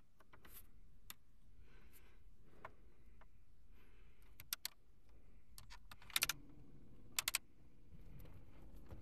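Saab's dashboard switches and buttons clicking as they are pressed one after another: scattered single clicks, then quick pairs and triples of sharper clicks about halfway through and again near the end.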